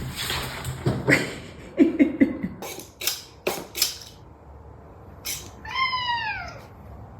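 Domestic cat meowing once, a single call that rises then falls, about six seconds in. Before it come several short noisy bursts and a brief low chirp.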